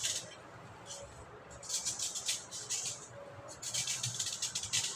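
Dry clay being carved and crumbling, in gritty crackling bursts: a short one at the start, then two longer ones of about a second each.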